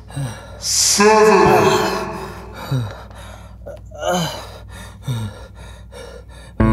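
A man gasping for breath and groaning, winded and exhausted, in separate heavy breaths with short falling groans between them.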